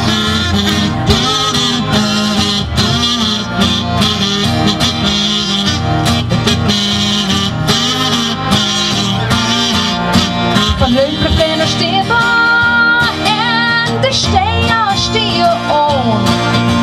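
Live acoustic country-folk music: two acoustic guitars strumming, with a harmonica playing the lead in an instrumental break between verses. The harmonica line holds and bends notes in the second half.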